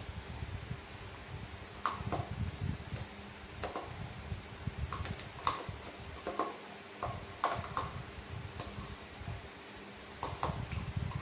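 A metal spoon scooping vanilla ice cream and knocking against a stainless-steel mixer-grinder jar: scattered sharp clinks, about one every second or two, over a steady low hum.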